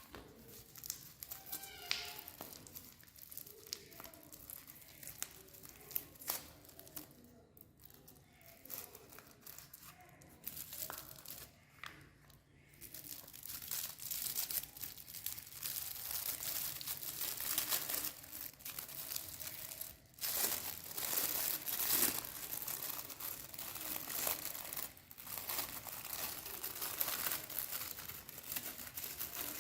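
Wrapper crinkling and tearing as a chocolate cone is unwrapped: scattered crackles at first, then dense, continuous crinkling from about halfway through.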